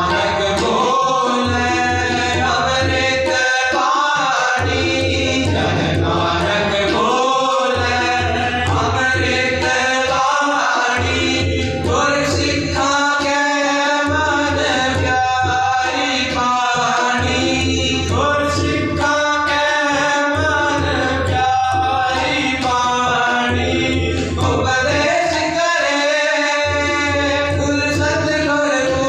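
Sikh Gurbani kirtan: boys singing a shabad to two Yamuna harmoniums, with tabla accompaniment.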